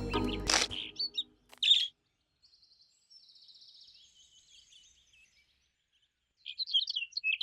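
Cartoon bird sound effects: a short squeak, then a faint high trill and a flurry of quick chirps near the end. Music cuts off in the first second.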